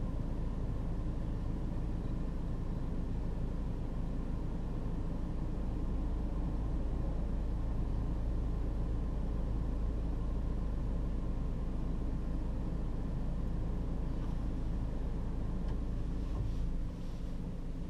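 Steady low rumble of a vehicle engine idling while stopped. The deepest part of the rumble drops off about a second before the end.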